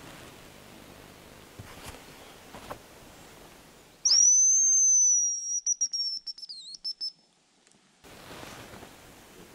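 A whistled hazel-grouse call in the male's song pattern. About four seconds in comes one very high, thin note that starts slightly higher, settles, and holds for about a second and a half, then breaks into a quick wavering trill that stops about three seconds after it began.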